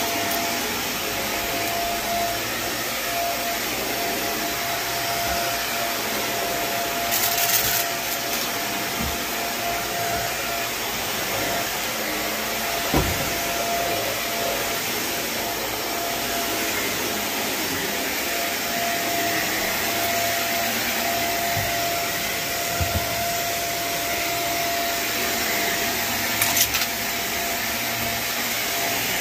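Carpet steam-cleaning extraction machine running steadily: a constant suction hiss with a faint steady whine, broken by a few brief knocks and clicks.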